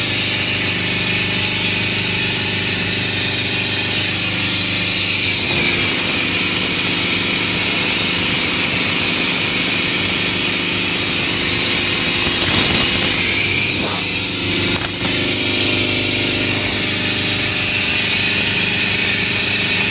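Cummins ISB 3.9 four-cylinder turbodiesel inboard running steadily under way at planing speed, with the rush of water past the hull and wake. The level dips briefly about fourteen seconds in.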